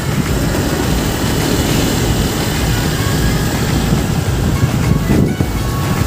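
Steady rush of wind and road noise from a motorcycle ride along a town road, with a dense low rumble.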